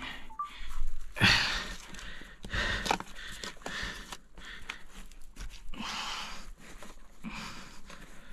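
A person breathing hard and crawling through a tight rock crawlway, with clothing and body scraping against stone and a few small knocks of loose stones.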